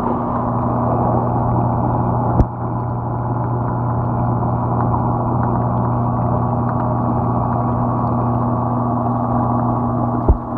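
Steady hum and water rush of reef-aquarium pumps heard through a microphone underwater in the tank, with two sharp knocks, one about two seconds in and one near the end.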